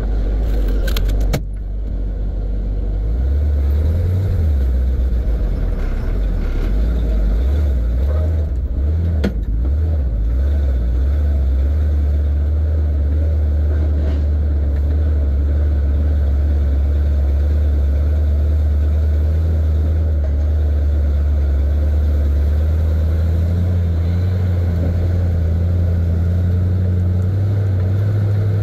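Old 1970 Chevy C50 dump truck's engine running as it drives, heard from inside the cab. Its low drone steps up in pitch a few seconds in, holds steady, and climbs again near the end as the truck picks up speed. A few short rattles come about a second in and again around eight seconds.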